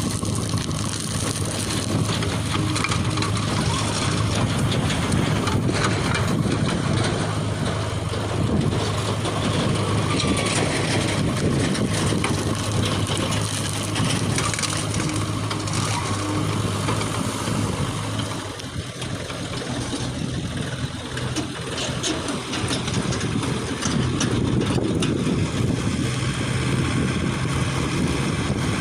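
JCB backhoe loader's diesel engine running steadily while working, with occasional short knocks. It eases off briefly about two-thirds of the way through, then picks up again.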